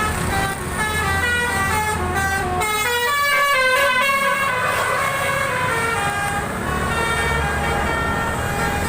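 Bus telolet horn playing a quick tune of stepped notes, with several horn tones sounding together near the middle, over the low rumble of the bus engine running.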